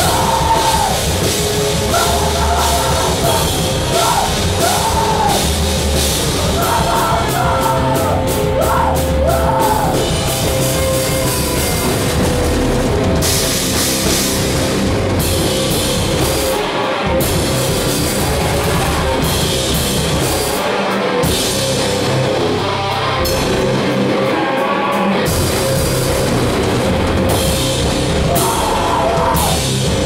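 Rock band playing loudly in a heavy style: electric guitar over a drum kit with dense cymbal hits.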